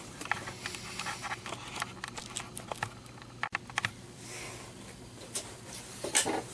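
Scattered light clicks and taps of small hard objects being handled, irregular and close together.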